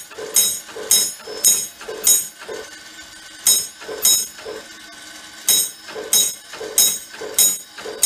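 Electric fire-alarm telegraph gong tapping out box number 625 with single metallic strokes about half a second apart. The end of a group of six, a pause, two strokes, a pause, then five strokes: the box's signal coming in over the alarm circuit after the box was pulled.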